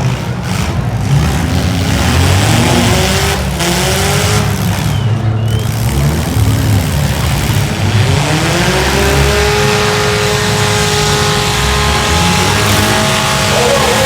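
Several compact demolition derby cars' engines revving, their pitch rising and falling as they accelerate, with one engine climbing and holding a high, steady rev after about eight seconds.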